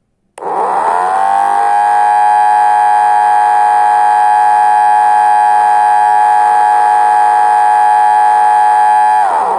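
Alarm sounding from a home-built Arduino alarm clock's buzzer: a loud siren-like tone that starts about half a second in, rises in pitch over about a second, holds steady for several seconds, then drops away near the end.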